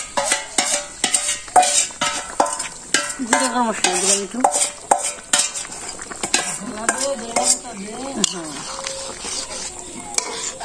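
Steel spatula stirring a simmering curry in a metal pot, scraping and clicking against the metal in quick, irregular strokes while the curry sizzles. Twice a longer, pitched sound slides downward.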